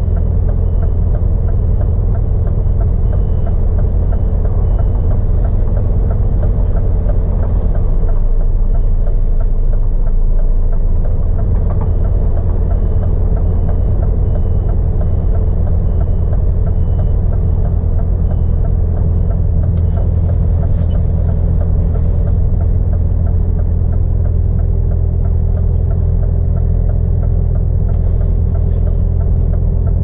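Scania R450 lorry's 13-litre straight-six diesel engine running steadily under way, heard from inside the cab as a deep, even drone with road noise.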